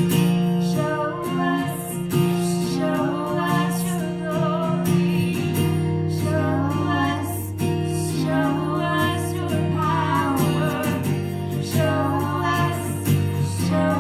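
Strummed acoustic guitar with female singing: a song being sung over steady guitar chords.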